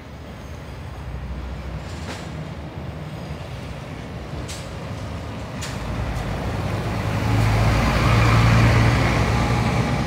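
Scania L94UB single-decker bus with its five-cylinder diesel engine approaching, passing close by and pulling away, the engine growing louder to a peak about three-quarters of the way through, then fading. Tyres hiss on the wet road as it goes by.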